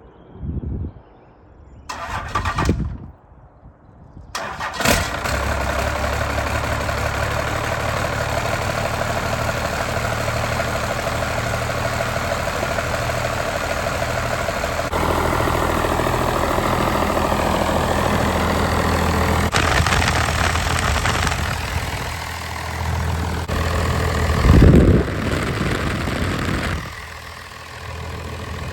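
A truck engine cranks briefly, catches about five seconds in and then runs steadily, with a brief louder surge near the end.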